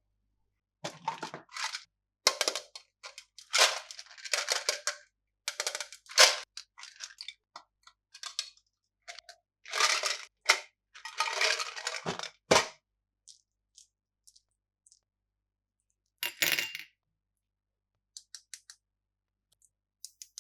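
Plastic candy packaging being handled and opened, crinkling and clinking in quick irregular bursts, then a single burst later on and a few light clicks near the end.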